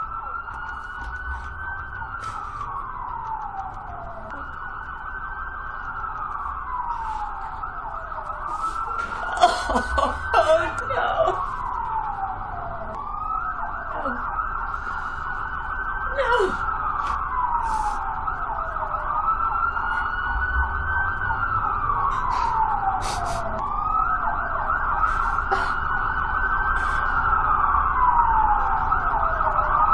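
Ambulance siren wailing, rising and falling slowly about every three seconds and growing louder. A few knocks sound about a third of the way through.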